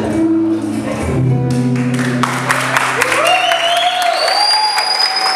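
The final chord of a live acoustic song, with guitar, rings out and fades over the first two seconds, and then the audience breaks into applause and cheering.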